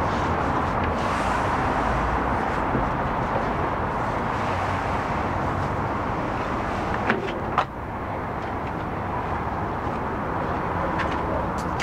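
Steady rushing outdoor background noise, with two sharp knocks about seven seconds in as a person drops off a dumpster lid onto concrete.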